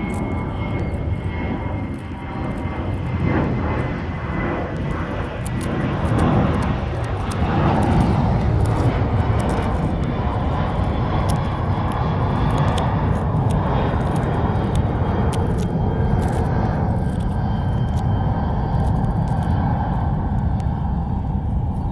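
Airplane flying overhead: a loud, steady engine noise that swells about six to eight seconds in and stays, with a faint high whine falling slowly in pitch at the start.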